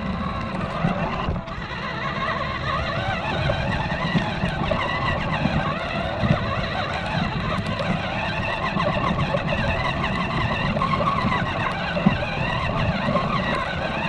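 A 1/20-scale RADCLO 4WD RC rock-crawler truck running on its two small electric motors and geared drivetrain, driving over pine straw. The motor whine wavers up and down with the throttle.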